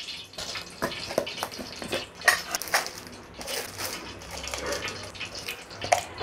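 Hot cooking oil crackling in a large aluminium pot, with scattered irregular pops. Near the end there is a sharper clatter as whole cardamom pods and cloves go into the oil.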